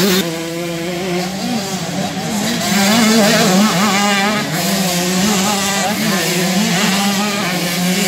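Several motocross bike engines running and revving at once, their pitch rising and falling as the riders open and close the throttle.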